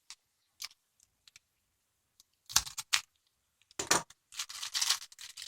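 A package being opened by hand: a few sharp clicks and knocks of items being handled, then packaging rustling and crinkling near the end.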